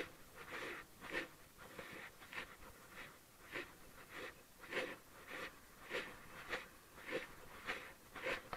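Footsteps scuffing along a concrete path at a steady walking pace, a little under two steps a second.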